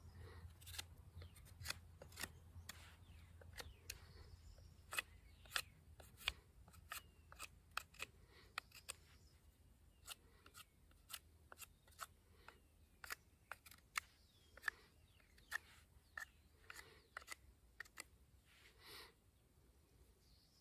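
Folding knife blade carving a forked wooden stick: a run of short, sharp shaving strokes, irregular, about one or two a second.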